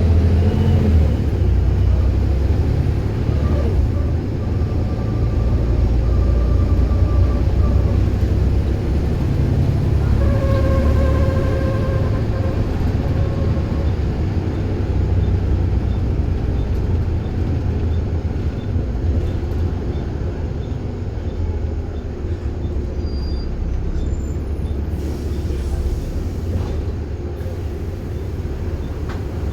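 Bus running with a deep, steady drone from its engine and drivetrain. A whining tone comes and goes over it, clearest about ten seconds in: one of the weird noises this bus makes.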